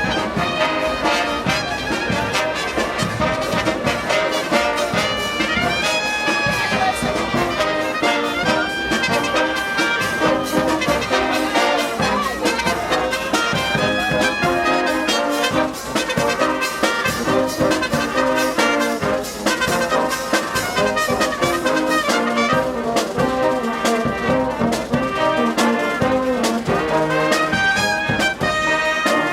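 Brass band of trumpets and trombones playing a piece together, with held notes and moving lines over steady percussion hits.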